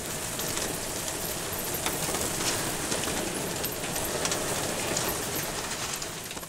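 Dense, rain-like fluttering and crackling of a mass of bats streaming through a cave passage, with many scattered high clicks; it fades away near the end.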